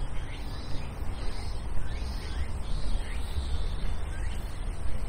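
Outdoor ambience: birds calling in short rising chirps every second or so over a steady low rumble.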